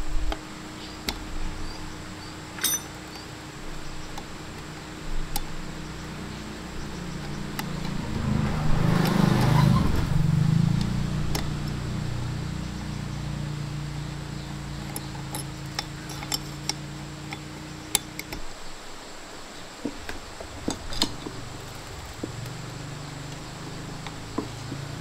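Workshop handling sounds: scattered light clinks and taps of metal tools and parts, typical of hands-on small-engine repair. They sit over a low steady hum, with a louder swell of noise about a third of the way in.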